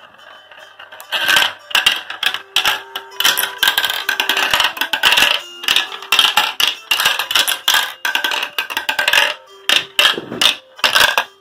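Glass marbles clicking and clattering down a marble run, starting about a second in and coming in stops and starts, bursts of rattling with short gaps between.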